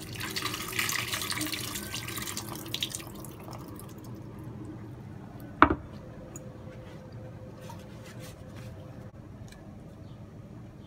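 Water swishing and splashing as diced cucumber is rinsed by hand in a glass bowl to wash off salt, for about the first three seconds. A single sharp knock comes about five and a half seconds in, followed by faint light clicks.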